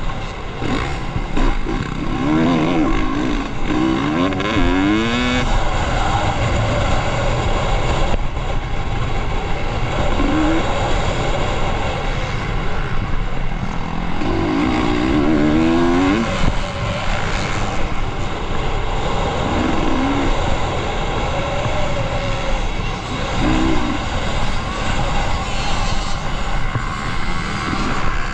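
Off-road motorcycle engines revving through an enduro course, their pitch climbing and dropping again several times over a steady engine and ground noise.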